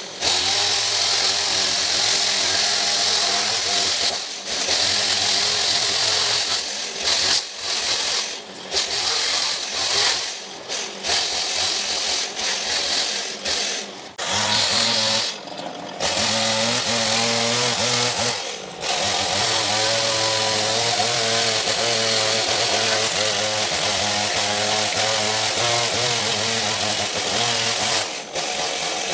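Gasoline chainsaw running at cutting speed as it rips lengthwise through a cedar slab. The engine note briefly drops away several times, mostly in the first two-thirds, then runs on steadily.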